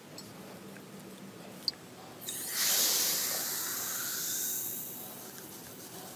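Fizzing hiss of a chemical cleaning bath foaming up around a metal part in a glass jar. It starts suddenly about two seconds in and dies away over the next few seconds as the foam settles.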